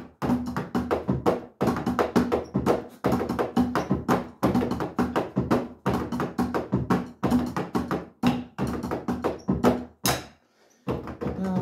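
Electronic drum kit being played with sticks: fast, steady strokes on the pads and cymbals in a driving rhythm, breaking off for a moment about ten seconds in and then starting again.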